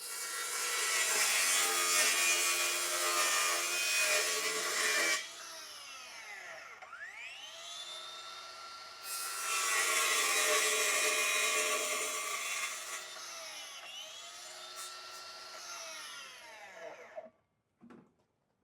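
Handheld angle grinder running a cutting disc: it spins up with a rising whine, cuts with a loud grinding hiss for about four seconds, winds down, spins up again for a second cut of similar length, then coasts to a stop. A short knock follows near the end.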